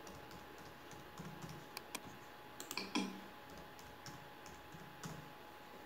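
Keystrokes on a computer keyboard as a password is typed: a dozen or so faint, irregular clicks.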